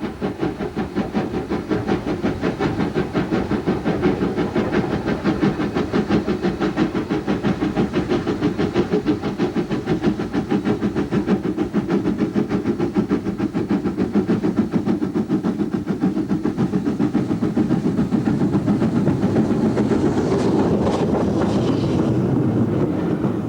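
Thompson class K1 2-6-0 steam locomotive working under steam, its exhaust beating in a rapid, even rhythm of about four beats a second, with a little extra steam hiss near the end.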